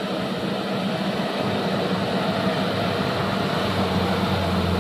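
Hino Dutro 130 HD light truck's diesel engine pulling steadily through deep mud ruts, growing louder and deeper near the end as the truck comes closer.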